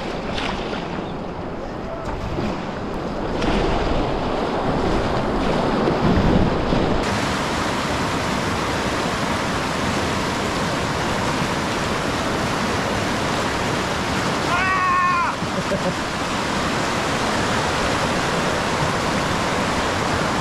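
Steady rushing of a river rapid's whitewater, with splashing around a paddled packraft in the first few seconds. A brief rising shout comes a little after the middle.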